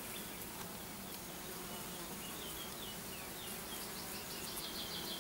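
Honeybees humming at the hive entrance, a steady low drone, with faint high chirps over it.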